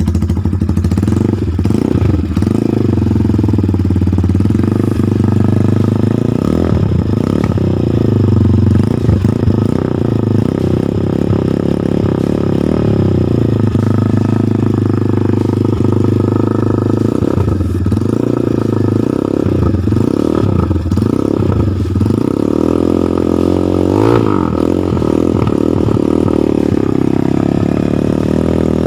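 Rusi Classic 250 motorcycle running through an SC Project muffler with its dB killer fitted, idling steadily with a few short blips of the throttle, a cluster of them about two-thirds of the way in.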